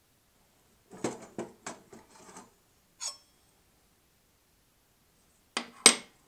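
Metal clinks and clatter of table saw parts being handled as the outer arbor flange comes off and the saw blade is lifted off the arbor: a quick run of clatter about a second in, a lone clink partway through, and two sharp clinks near the end, the loudest.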